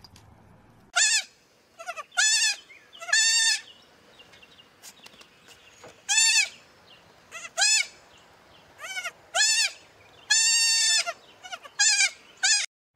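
Baby goats bleating over and over: about a dozen high-pitched calls, some short and some drawn out, the longest about two-thirds of the way through.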